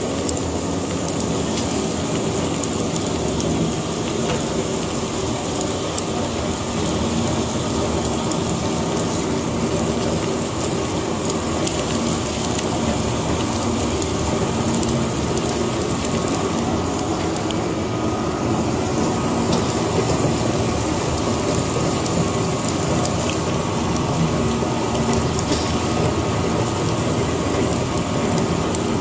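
Twin-shaft shredder's toothed cutter discs turning and tearing through fabric: a steady, dense grinding with constant fine crackle and no pauses.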